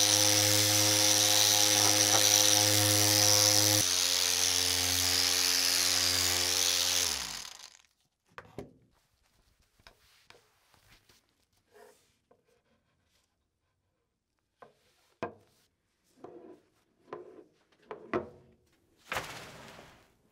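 Power drill spinning a foam polishing pad on the epoxy-coated bat, running steadily, its pitch stepping down slightly about four seconds in, then stopping about seven and a half seconds in. After that come faint cloth rubbing and a few light knocks, and a brief rustling burst near the end.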